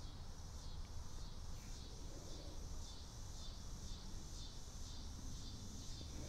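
Night insects chirping in a steady rhythm, about two chirps a second, over a low steady hum.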